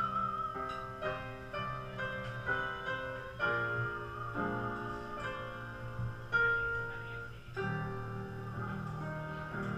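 Upright piano played by hand: a melody of struck notes over sustained chords.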